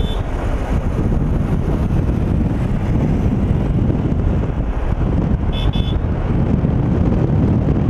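Wind and road noise of a moving car, heard from an open side window, with heavy wind buffeting on the microphone. A brief high beep sounds about five and a half seconds in.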